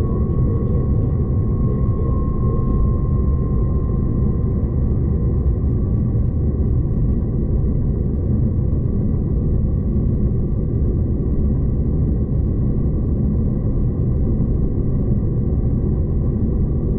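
Steady rumble of a V/Line passenger train running along the track, heard from inside the carriage, with a faint steady whine above it.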